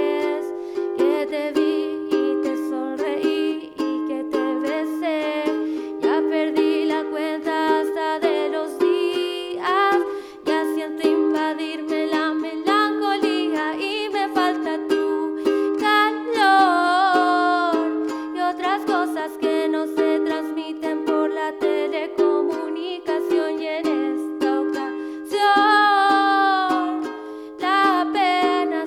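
A song played live: plucked string chords over a steady held chord, with a melody line gliding up and down above it at times.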